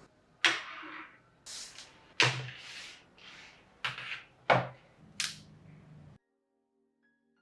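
A series of about seven sharp knocks and thuds spread over some five seconds, each with a short hissing tail, then a sudden cut to silence.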